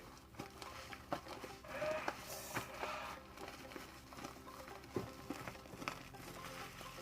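Hands kneading fluffy shaving-cream slime, giving irregular soft squishes and small pops and clicks, over quiet background music.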